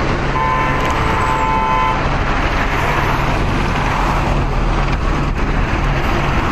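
Steady street traffic noise, with a car horn held for about a second and a half near the start.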